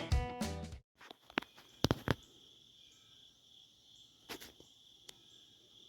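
Guitar music cuts off within the first second; then a faint, steady chorus of insects with a few sharp clicks and taps scattered through it.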